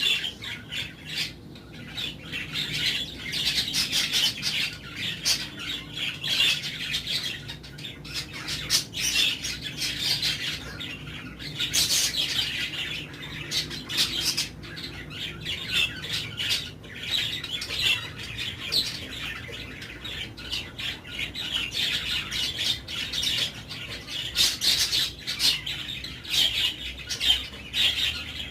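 Many caged birds chattering and squawking, with scratchy calls overlapping continuously.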